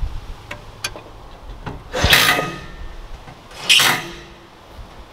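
Camera handling noise: two brief scuffing rustles about two and four seconds in, with a few faint clicks, as the camera is carried around the vehicle.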